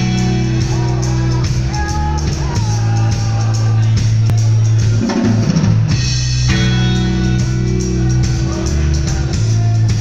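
Rock band playing live: electric guitars holding chords over a drum kit, with the guitars thinning out briefly about five seconds in before coming back in full.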